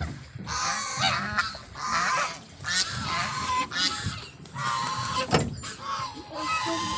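A flock of white domestic geese honking, calling over and over at roughly one honk a second, with some calls overlapping.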